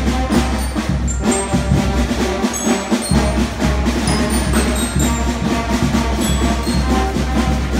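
Youth concert band playing: alto saxophones, clarinets and flutes with percussion, under a conductor.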